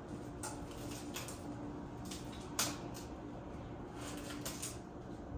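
Scattered crisp snaps and crinkles as a head of cauliflower is handled in its plastic bag and its leaves are pulled off, a few separate clicks with the sharpest about two and a half seconds in, over a faint steady hum.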